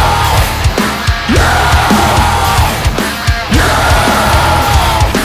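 Heavy, distorted band music with a pounding low end, over which a vocalist shouts "you" twice, about a second in and again after three seconds.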